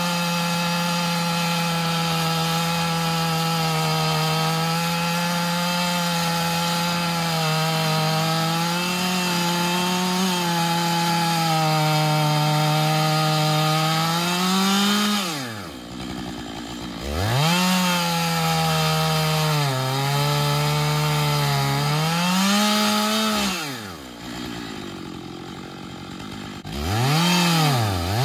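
Two-stroke chainsaw in an Alaskan-style chainsaw mill, running at full throttle under load as it rips a log lengthwise into a slab; the engine note holds steady with slight wavering. About halfway through, the throttle is let off and the engine falls toward idle, then revs back up. Near the end it idles for a few seconds before revving again.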